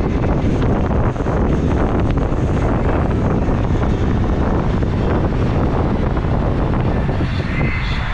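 Loud, steady rumble of wind buffeting the microphone, strongest in the low bass.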